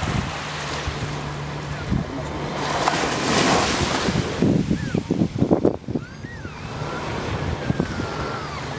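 Small waves washing up onto a sandy beach, the wash swelling loudest about three to four seconds in, with wind buffeting the microphone in gusts just after. Under it runs a steady low hum of a longtail boat engine offshore.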